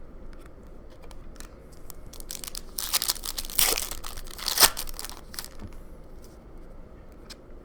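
Wrapper of a Panini Prizm basketball card pack being torn open and crinkled, a dense crackle lasting about three seconds and loudest near the end.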